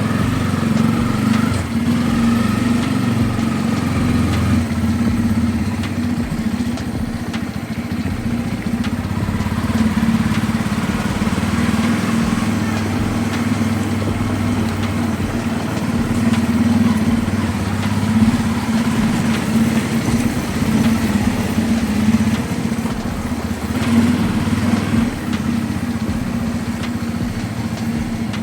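Bajaj Pulsar N250's 249 cc single-cylinder engine and exhaust running steadily at an even pace, with no clear revving or gear changes.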